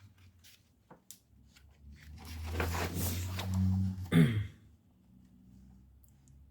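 Paper rustling as a magazine is handled and its pages turned, building up about two seconds in and ending in a sharp tap a couple of seconds later.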